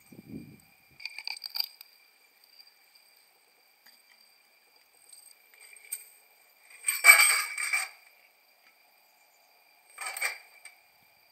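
Metal kitchenware clinking and clattering: a few light clinks about a second in, a louder clatter lasting under a second near the middle, and another short clatter near the end.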